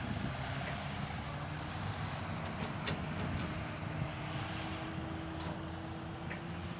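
Heavy diesel machinery running steadily: the engine of a backhoe or dump truck loading sand, with a faint whine held over it and a few light clicks.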